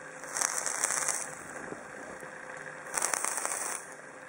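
Dual-coil 0.3 Ω twisted-kanthal build in a Helios clone dripper crackling in two short bursts, about half a second and three seconds in, as the Maraxus clone mechanical mod is fired. The mod fires on each press of the button, showing the misfire fix works.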